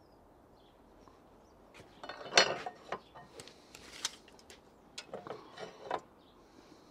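Wooden decking boards being handled and lined up on a mitre saw's bed: a series of knocks, clatters and scrapes, the loudest about two seconds in, with more around four and six seconds. The saw is not running.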